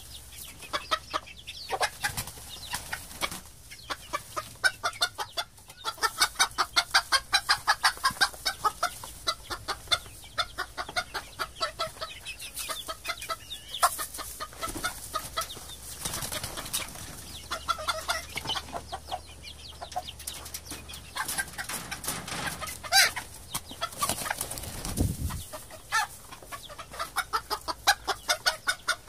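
Domestic chickens clucking: long runs of short, quick clucks, about five a second, broken by brief pauses and a few louder single calls.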